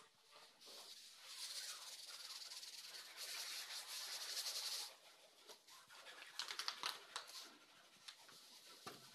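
Carpet fitter's hand tool rubbing over foam carpet underlay on the floor: a faint, dry, scratchy rubbing in long strokes, followed about two-thirds of the way through by a short run of sharp clicks.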